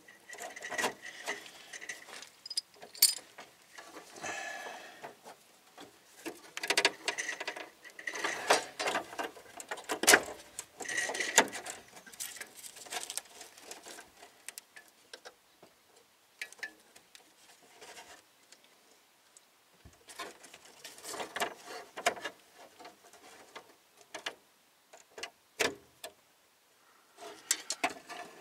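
A new metal brake line being handled and test-fitted along the underbody of a 1993 Jeep Cherokee: irregular taps, clicks and short scrapes of the tubing against the frame and its clips.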